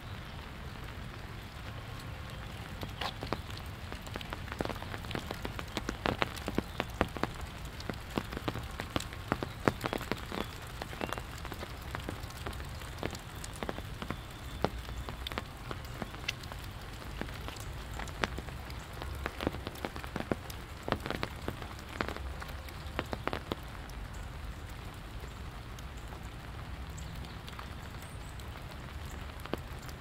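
Steady rain falling, with many sharp, irregular raindrop hits close by from a few seconds in until about six seconds before the end.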